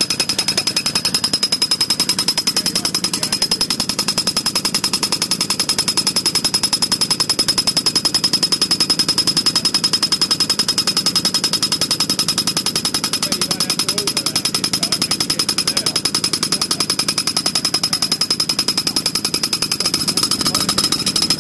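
Air-driven impact mole (moling machine) running underground, a rapid, even hammering that keeps up without a break as it bores through soil to pull in the new poly water pipe. A steady high whistle runs over the hammering.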